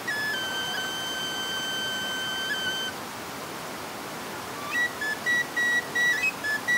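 A wanjhli, a shepherd's folk flute, holds one long steady note for about three seconds, falls silent for nearly two seconds, then plays a quick run of short notes near the end, over a steady background hiss.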